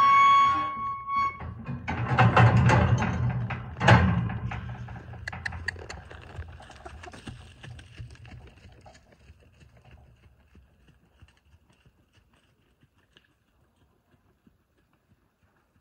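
Camera handling noise: rustling and knocking with a sharp thunk about four seconds in, then light crackling steps on dirt that fade away. A steady high tone sounds at the very start and stops about a second in.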